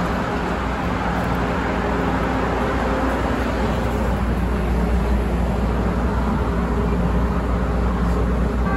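Steady low hum and hiss of a CTA 2600-series rapid-transit car standing at the platform with its doors open, its onboard equipment running while it waits.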